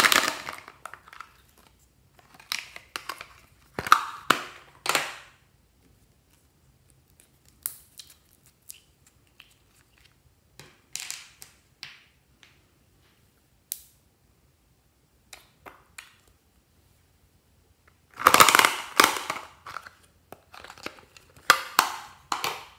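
Hands handling small plastic items: a toy case, glitter glue pens and a nail polish bottle. Scattered clicks, rattles and rustling come in short separate bursts with quiet gaps, and the longest, loudest cluster falls about three-quarters of the way through.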